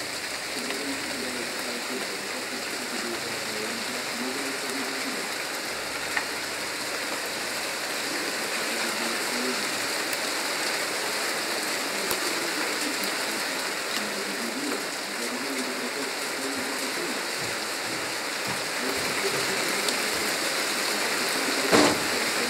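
Steady rain falling on asphalt and grass, an even hiss that grows slightly heavier toward the end. A short thump sounds just before the end.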